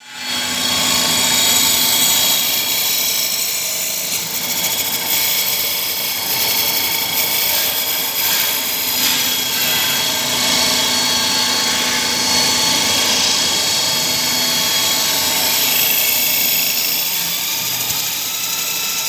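CNC wood lathe running, a steady hissing machine sound with a thin high whine.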